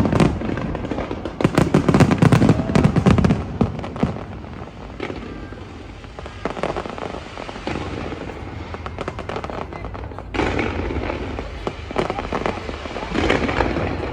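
Fireworks bursting and crackling in dense volleys, loudest in the first few seconds, quieter scattered pops in the middle, then fresh volleys building again near the end.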